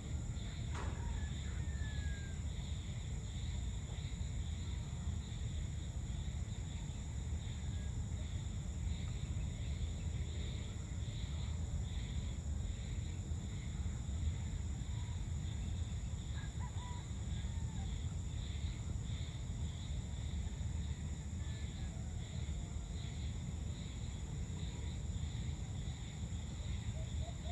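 Evening outdoor ambience: insects trilling steadily and high, over a low steady rumble, with a few short bird chirps now and then.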